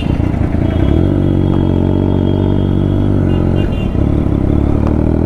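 Motorcycle engine running steadily at a constant, low speed, with a brief dip about four seconds in.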